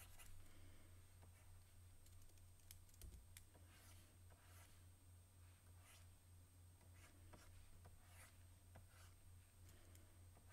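Faint scratching strokes and light taps of a stylus drawing on a graphics tablet, over a steady low hum.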